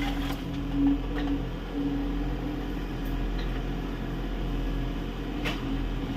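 Kubota U30 mini excavator's diesel engine running steadily under working load, with a steady hum that swells and eases every second or so. A single short knock comes about five and a half seconds in.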